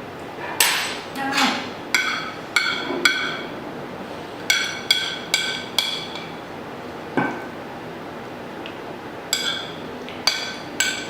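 Metal cutlery clinking against a ringing dish while eating: a dozen or so sharp clinks in small clusters, with a duller knock in the middle.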